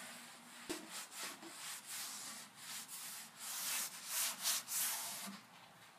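Cloth rag rubbing soft furniture wax into a wooden tabletop in quick back-and-forth strokes, a dry swishing that grows stronger in the second half. A small knock sounds near the start.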